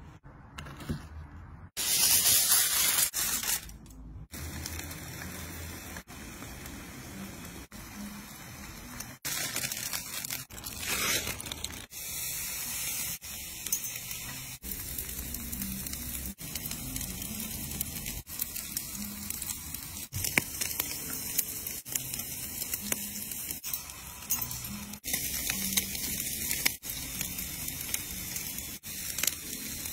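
Cooking sounds in short cut clips: a steady hiss of meat fat sizzling over a red-hot grill, with a louder hissing stretch about two seconds in.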